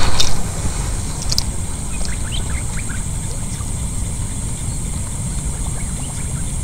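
Wind rumbling on the microphone under a steady high insect drone, with two sharp clicks about a second apart near the start and a few faint short chirps.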